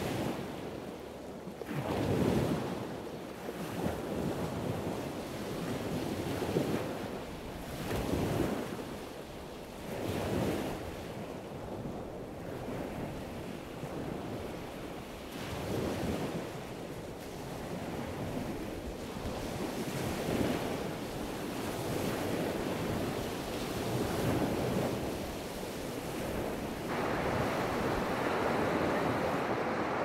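Sea surf washing onto a sandy beach, rising and falling in swells, with wind buffeting the microphone. Near the end the surf hiss becomes steadier and louder.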